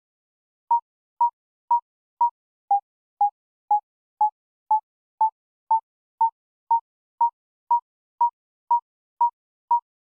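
Short synthesized sine-wave beeps from a Pure Data patch, each with a quick attack and a fast fade, repeating about twice a second after one longer gap at the start. Their pitch drops a little about three seconds in, then glides gradually back up over the next few seconds and holds.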